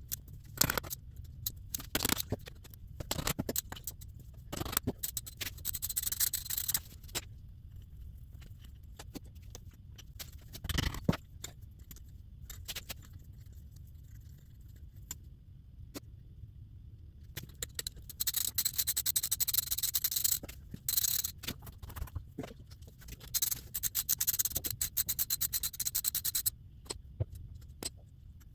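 Hand tools working the 12 mm bolts on a Tuff Torq K91 transaxle's metal case: a wrench clicking, with metal clinks and scrapes. There are several stretches of rapid clicking.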